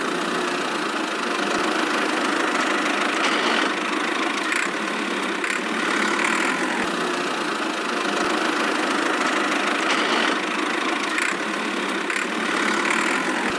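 A small motor running steadily, the drive of a DIY miniature vehicle, with an even mechanical whirr and no deep engine rumble.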